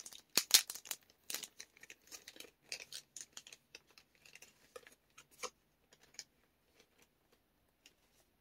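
Plastic and cardboard booster packaging being handled: a run of crinkling rustles and small sharp clicks, busiest in the first few seconds and thinning out by about six seconds in.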